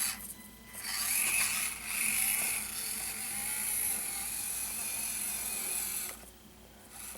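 Axial SCX24 micro crawler's small electric motor and geared drivetrain whirring under throttle in the low-speed setting as it crawls, in a short burst and then a longer run that stops about six seconds in.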